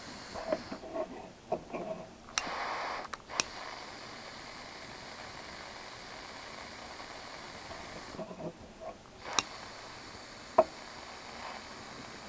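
Butane torch with a ceramic heating tip hissing steadily while plastic rod is melted into a seam. A few sharp clicks and short knocks from handling the work are heard, and there is a brief louder rush about two and a half seconds in.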